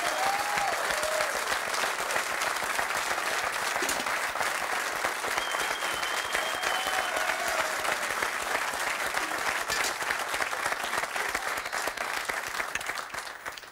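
Studio audience applauding a finished dish, a steady clatter of many hands that fades away near the end.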